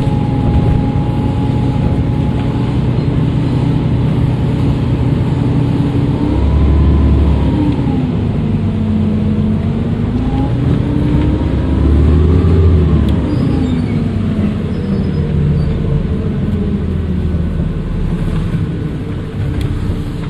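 Dennis Trident II double-decker bus's diesel engine running under way, its pitch rising and falling twice as it pulls and eases off, with the turbocharger whistle heard as thin tones above the engine.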